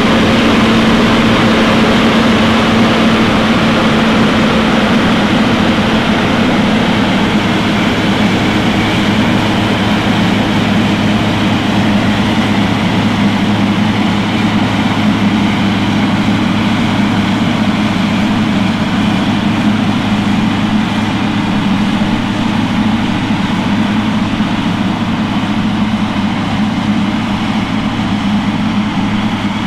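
Heavy diesel farm machinery running at a steady speed: a constant low engine hum under a dense mechanical rush, with no change in speed.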